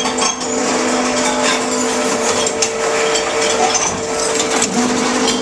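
Tomra TX2 reverse vending machine running its roller motor to spin a bottle in the intake so the scanner can read the barcode, a steady hum with the bottle rattling and knocking against the rollers. The lower part of the hum stops about two seconds in and starts again near the end.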